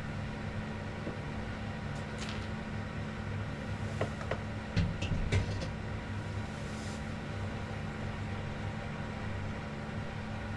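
A steady low mechanical hum, with a few light clicks and knocks about four to five and a half seconds in.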